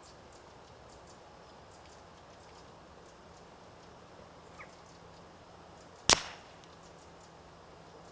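A single shot from a silenced .22 rimfire rifle about six seconds in: one sharp crack with a short tail. A faint click comes about a second and a half before it.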